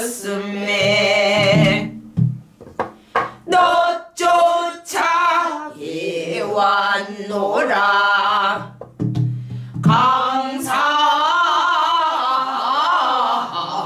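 A woman singing a Korean danga in pansori style, her held notes wavering with heavy vibrato. She keeps the beat on a buk barrel drum with a stick, and a few sharp strokes fall in the gaps between phrases about two to five seconds in.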